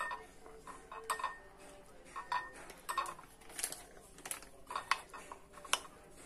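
A metal spoon stirring thin flour batter in a ceramic bowl, clinking against the bowl at irregular intervals.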